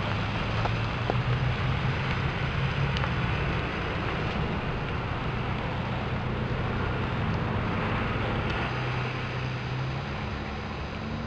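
Truck driving along a road: steady engine hum with continuous road noise.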